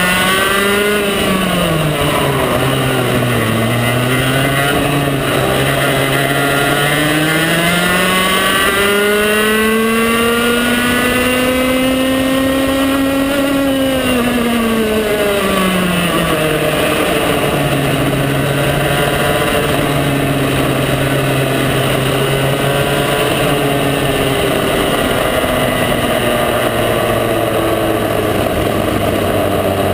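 Onboard sound of a TAG kart's 125cc two-stroke engine at race speed. Its pitch climbs steadily for several seconds, falls away sharply about halfway through as the kart slows, then holds steady at a lower pitch and drops once more near the end.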